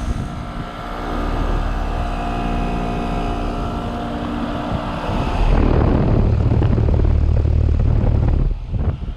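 Carrier Comfort Series heat pump outdoor unit running, its coil lightly frosted: a steady hum of compressor and condenser fan. About five seconds in, a louder low rumble takes over until shortly before the end.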